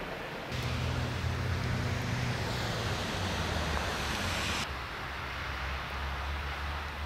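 Steady outdoor hiss over a low rumble. A brighter hiss comes in suddenly about half a second in and cuts off suddenly about four and a half seconds in.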